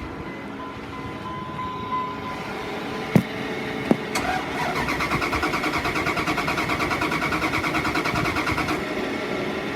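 1999 Dodge Ram 3500's 5.9-litre V8 cranking on the starter without catching: two sharp clicks, then a few seconds of rhythmic cranking that stops abruptly. The engine turns over but does not fire, which the owner puts down to no spark.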